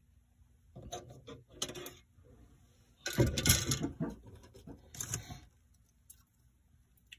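Handling noise from a plastic model-kit parts tree (sprue) being lifted off a cutting mat. It comes in a few short spells, the loudest about three seconds in.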